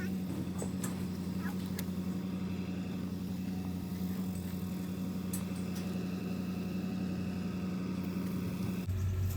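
Vehicle engine idling with a steady low hum, a few faint clicks over it; near the end the hum switches abruptly to a lower pitch.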